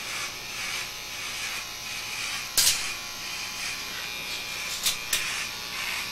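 Corded electric hair clippers buzzing steadily as they are run close over a shaved scalp, taking off the last stubble. Three sharp clicks cut through: one about two and a half seconds in and two close together near the end.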